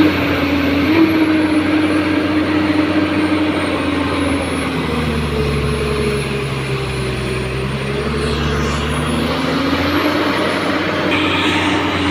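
Excavator's diesel engine running steadily; its note drops in pitch about five seconds in and climbs back up near ten seconds, with a faint high whine above it.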